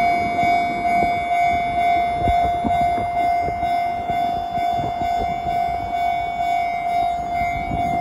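Japanese railway level-crossing warning bell starting to ring as the crossing lights come on, a loud steady repeating tone that warns of an approaching train.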